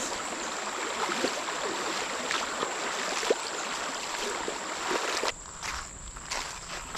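Shallow, fast-moving creek water rushing and sloshing around legs wading across it, with scattered splashes of footsteps in the water. The rush drops quieter about five seconds in, leaving separate splashes.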